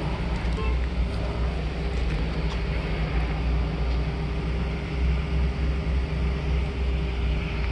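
Steady low rumble of an engine running, with a faint steady hum above it.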